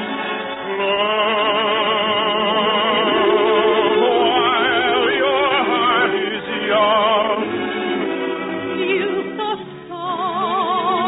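A soprano sings an operetta song in full operatic style with wide vibrato over orchestral accompaniment, heard through the narrow, thin sound of an early-1950s radio broadcast recording. The phrases are sustained, with a short break between them just before ten seconds.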